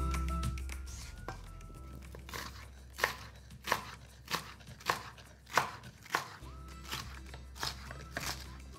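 Chef's knife dicing a yellow bell pepper on a plastic cutting board: a series of sharp chops, about one to two a second, starting about two seconds in. Background music plays underneath.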